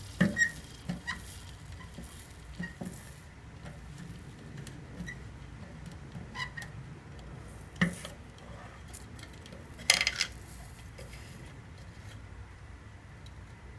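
Soldering gun tip tapping and scraping on a metal motorcycle fuel tank as a tin patch is soldered on: scattered light clicks and scrapes, with sharper knocks just after the start, about eight seconds in and a cluster about ten seconds in.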